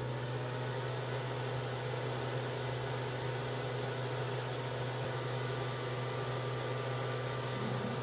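Creality Falcon A1 enclosed laser engraver at work, its fume exhaust fan running steadily: a even rush of air over a low hum.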